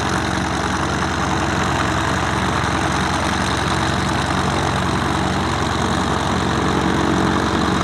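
Piston aircraft engine running steadily at idle, its note and level unchanging.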